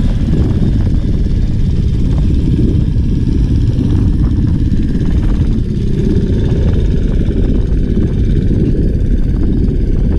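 Steady wind rumble buffeting the camera microphone while riding a bicycle along a road.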